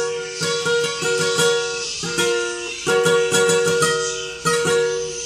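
Acoustic guitar played solo, fingerpicked and strummed chords in a steady rhythm, as the instrumental introduction before the singing comes in.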